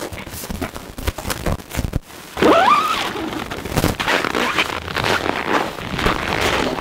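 Nylon tent fabric and clothing rustling, with small clicks and scrapes. About two and a half seconds in there is a brief rising squeal, then wind buffets the microphone along with the handling noise.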